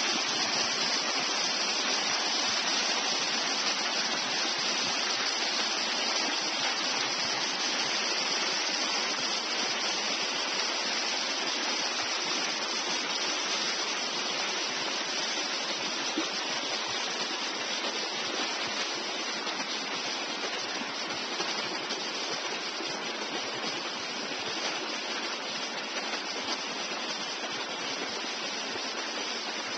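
Small creek rushing and splashing over rocks in little cascades: a steady rush of water that grows slightly fainter in the second half.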